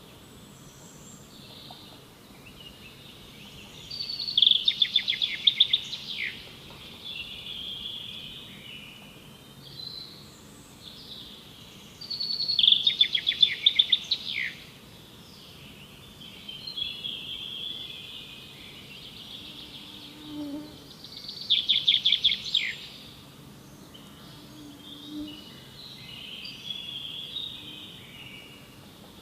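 Forest birds calling, with three loud, fast trilled phrases about eight seconds apart and softer chirps in between.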